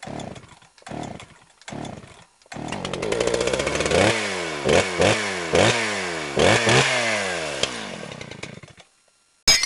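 Small two-stroke engine, chainsaw-like: a few short bursts, then it catches, runs and is revved up several times, each rev falling away in pitch, before it dies down. A short, sharp, loud hit comes near the end.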